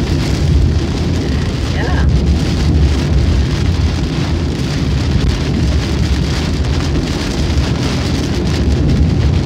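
Heavy rain hitting a moving car's windshield and roof, heard from inside the cabin, over a steady low rumble of tyres on the wet highway.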